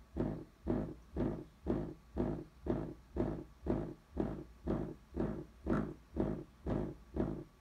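Small test speaker driven by a repaired Sunfire subwoofer amplifier, giving evenly spaced low pulses a little under two a second; the amplifier is passing signal after its repair.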